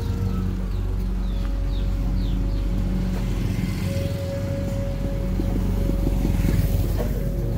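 A small motorcycle approaches and passes close by, its engine and tyre noise swelling to a peak about six seconds in, over background music of long held tones.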